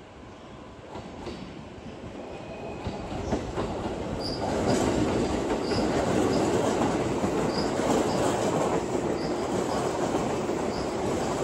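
Negishi Line electric commuter train running on the rails, its rumble growing louder over the first few seconds and then holding steady, with faint high ticks about every second and a half.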